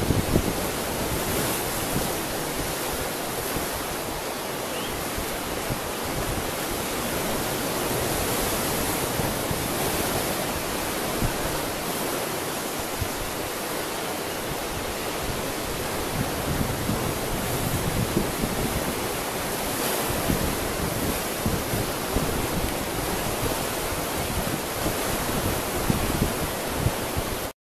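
Steady rushing noise of wind and sea surf, with irregular low rumbles of wind buffeting the microphone. It cuts off suddenly near the end.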